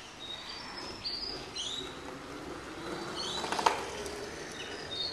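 Caster board wheels rolling on asphalt, a low even hiss that swells around the middle, with one sharp tap at about three and a half seconds. A few short high chirps sound over it.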